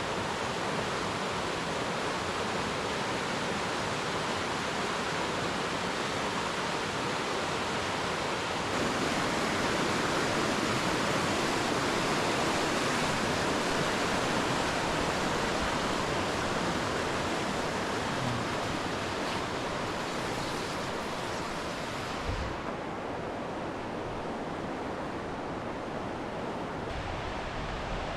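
Steady rushing of fast-flowing water. It grows a little louder about nine seconds in, then drops and turns duller about twenty-two seconds in.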